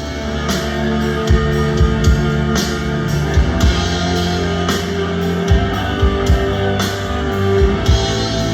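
Rock band playing: electric guitar and bass holding sustained notes over a steady beat on a drum kit, starting at once.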